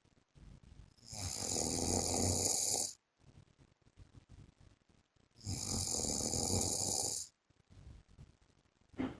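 A man snoring in his sleep: two long snores about four seconds apart, each lasting about two seconds, with faint breathing sounds between them.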